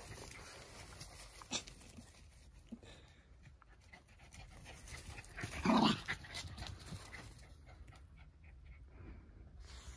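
Jack Russell terriers panting hard during rough play, with one short, louder dog vocalisation about six seconds in.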